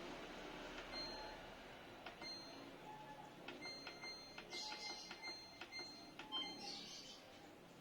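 Samsung washing machine control panel beeping: a run of short, high electronic beeps with light clicks as its buttons are pressed to set a cycle, coming quicker and closer together in the middle.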